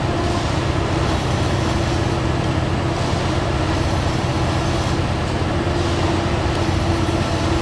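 Heavy diesel engine of a railway track-maintenance machine running steadily, a constant low hum with a steady droning tone over it.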